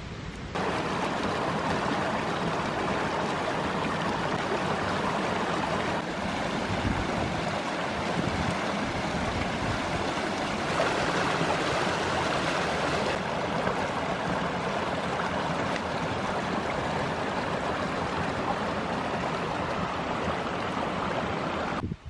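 Fast mountain stream rushing over rocks, a steady loud water noise that comes in abruptly about half a second in and cuts off just before the end.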